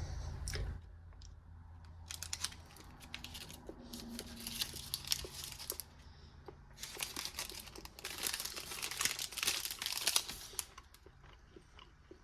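Wrapper of a ration food bar crinkling and tearing as it is handled and opened, in several irregular bouts that die away near the end.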